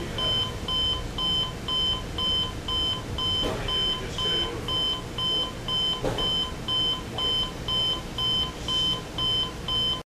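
RCA RC207 clock radio's beep alarm going off: a steady train of short electronic beeps, about three a second, that cuts off suddenly near the end.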